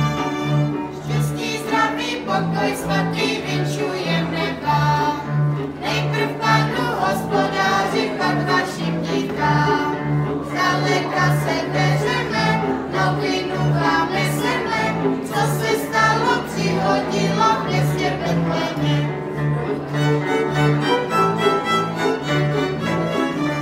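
Children's folk ensemble playing a lively tune: a Holák cimbalom struck with hammers, violins, clarinet and double bass keeping a steady beat, with children's voices singing along.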